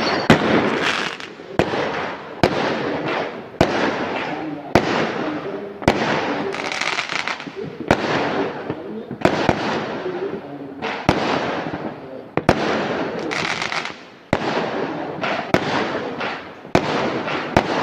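Fireworks going off in quick succession: sharp bangs about once a second, each followed by a fading crackle.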